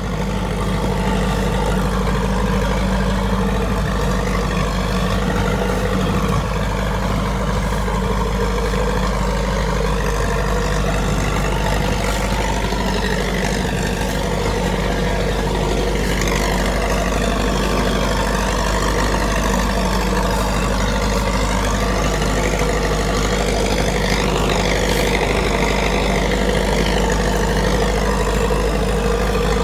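A 1950s Allis-Chalmers crawler dozer's engine running steadily under load as it skids a big red oak log, with the log dragging over leaves and dirt.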